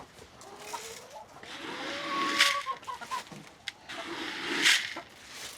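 Chickens clucking, with one drawn-out call about one and a half seconds in. Two short, louder rushes of noise come at about two and a half and four and a half seconds, the second the loudest.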